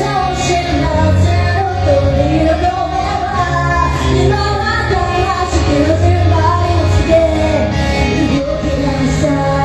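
A pop song starting up in a live hall: a loud bass-heavy beat with women's voices singing the melody over it.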